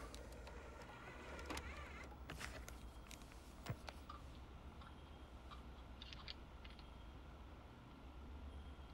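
Videocassette recorder's tape mechanism clicking a few times as it takes the tape and starts playing, over a low steady hum.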